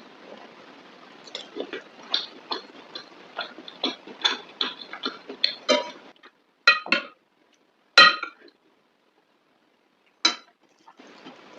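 Close-miked eating sounds: many small wet chewing and mouth clicks from someone eating mutton curry and rice. After about six seconds they stop and a few sharp clinks of dishware follow, the loudest about eight seconds in.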